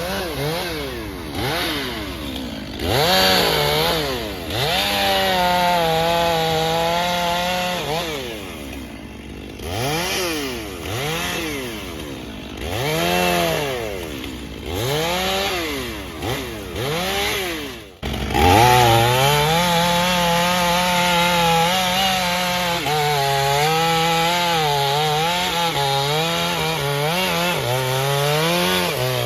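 Chainsaw engine revved up and down in a string of short throttle bursts. About two-thirds of the way through it comes in at sustained high revs, the pitch repeatedly dipping and recovering.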